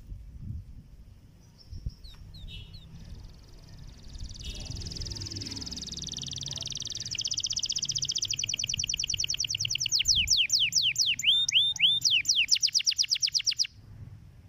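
Canary singing: a long, even trill that builds for a few seconds, then a run of rapid repeated notes and quick falling whistles, breaking off suddenly near the end.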